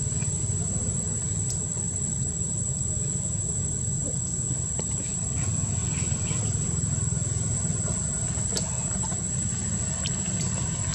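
Steady low rumble with a thin, constant high-pitched whine above it and a few faint ticks.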